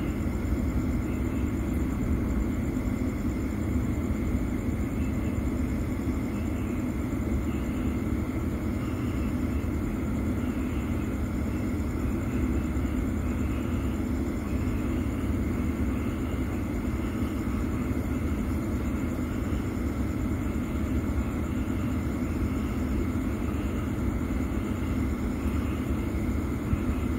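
Steady low rumble and hum of background noise, with faint high chirps repeating about once a second.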